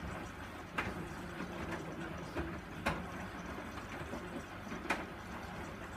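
Hoover Dynamic DYN 9164 D8PX washing machine running mid-cycle on its Rapid 30 programme: a steady low drum-and-motor rumble with a sharp click about every two seconds.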